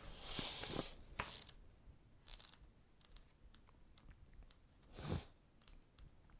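Quiet small room with faint handling noise on a tabletop: a soft rustle and a couple of light clicks in the first second or so as a card is set down and the hand drawn back, then scattered faint ticks and one brief soft sound about five seconds in.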